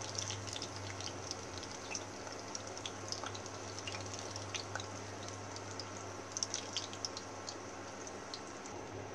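Lá lốt leaf rolls frying in a pan of oil on low heat: a soft steady sizzle with scattered crackling pops, a brief cluster of louder pops about six and a half seconds in.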